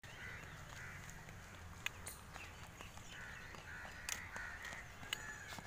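Crows cawing repeatedly in short runs, with a few sharp clicks.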